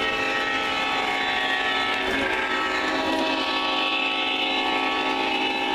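Onboard sound systems of Lionel Legacy O scale diesel locomotives playing a steady, pitched diesel drone through their small speakers as the train passes.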